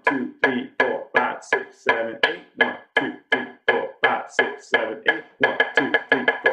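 Drumsticks striking in an even single-hand beat, about three strokes a second, then doubling to about six strokes a second near the end as both hands come in.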